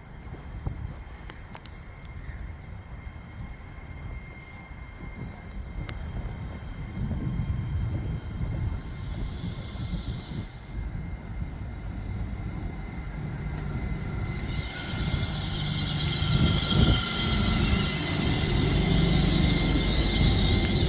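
Hull Trains Class 802 train pulling into the station, its low rumble growing steadily louder, with a high hiss joining about three-quarters of the way in as it slows to stop at a red signal.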